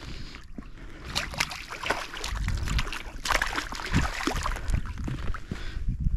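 A hooked carp splashing and thrashing at the water's edge as it is pulled up against a concrete canal bank, in a run of irregular splashes and slaps, with a low rumble underneath from about two seconds in.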